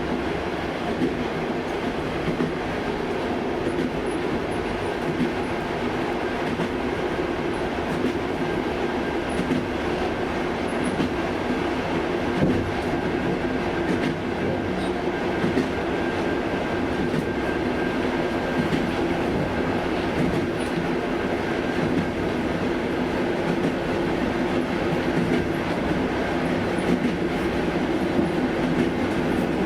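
Passenger train on the Trans-Siberian Railway running steadily: a continuous rumble with occasional faint clicks of the wheels on the track.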